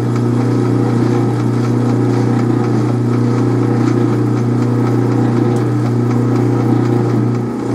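Atlas metal lathe running with a steady motor and drive hum while a carbide tool faces off the end of the spinning workpiece. The hum dips briefly near the end.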